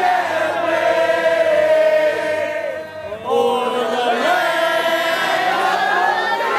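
Crowd of protesters chanting in unison, with long drawn-out phrases: a brief dip about three seconds in, then the chant picks up again.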